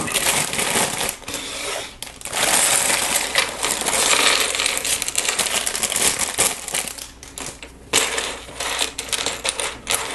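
Small plastic Lego pieces clattering and rattling as a parts bag is emptied out, then scattered clicks of pieces being moved about.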